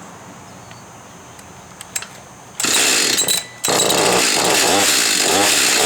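Warmed-up Husqvarna 562 XP two-stroke chainsaw starting about two and a half seconds in, faltering briefly, then running with its revs rising and falling over and over. The saw is being run hot to reproduce its hot-starting problem.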